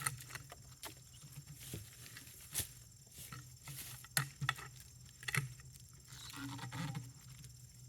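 Scattered light knocks, clicks and scrapes of an oak log being worked along a log rack with a cant hook, with a short rustling stretch about six seconds in.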